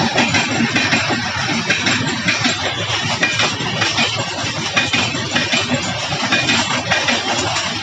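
Coaches of an Indian Railways express train passing close by at speed: a steady rumble and rattle of wheels on the rails, with frequent irregular clicks and clatter.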